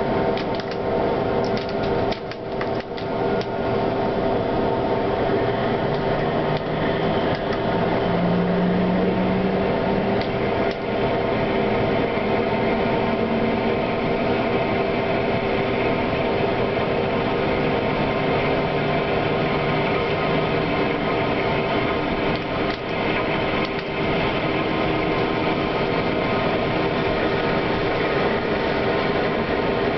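Tram running along the rails, heard from inside at the front: a steady mechanical hum and rolling noise, with low motor tones that shift in pitch and a few clicks and knocks from the wheels and track.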